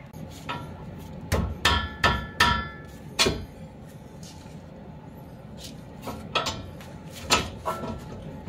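Sharp metal knocks, each with a brief ring, from steel parts of a Honda Civic's front suspension being struck as the ball joint is fitted to the lower control arm. There are about six knocks in the first three seconds, then a pause, then about five more from about six seconds in.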